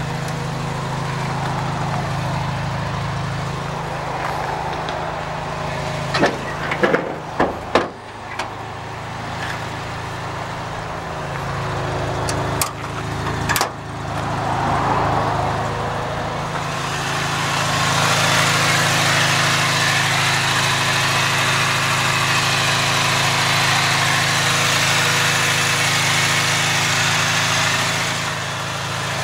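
Daihatsu Hijet's 550cc engine idling steadily. There are a few sharp metallic clanks about a third of the way in and again around the middle. From just past halfway the running grows louder and hissier.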